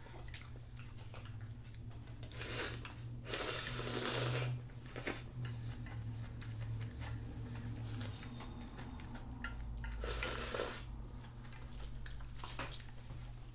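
Person eating Neoguri ramyun: noodle slurping and chewing, with small clicks of chopsticks and a metal spoon. A longer slurp comes a few seconds in and another just after ten seconds.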